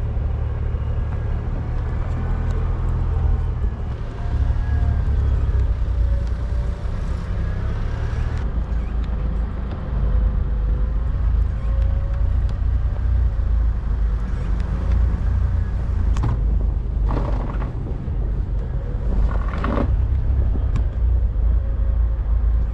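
Toyota 4x4 truck driving slowly down a snowy trail: a steady low engine and drivetrain rumble, with a few short knocks in the last quarter.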